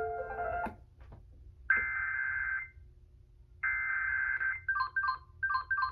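Emergency Alert System SAME header played through a Sangean HDR-15 HD radio's speaker. Piano music cuts off, then two buzzy data-tone bursts of about a second each, a second apart, then a run of short, clipped beeps at about four a second, marking the start of a required monthly test.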